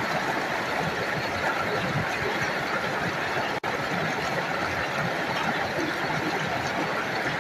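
Glacial meltwater stream rushing and splashing over rocks in a small cascade, a steady, loud rush of water with a brief break about three and a half seconds in.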